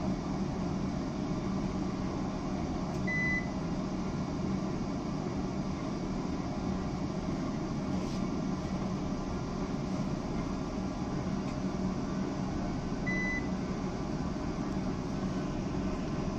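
REMI R-8C BL benchtop centrifuge running steadily at its set speed of 4500 RPM, an even motor hum. Two short high beeps sound about ten seconds apart.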